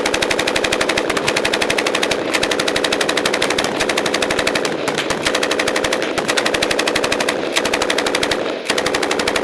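A machine gun firing one long burst of automatic fire very close, the shots coming fast and evenly, with a few split-second breaks around the middle and near the end: suppressive fire.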